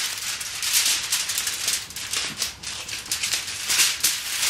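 Aluminium foil crinkling and rustling as two sheets are folded together and creased into a seam by hand, in quick irregular crackles.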